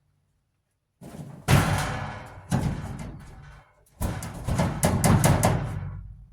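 Several heavy banging, clanging impacts of sheet-metal dryer parts, each ringing out and fading, with a rapid run of hits in the second half.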